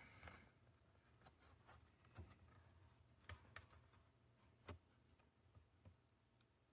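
Near silence with faint, scattered clicks and taps, about nine of them, from hands or a tool handling the Chromebook's plastic case.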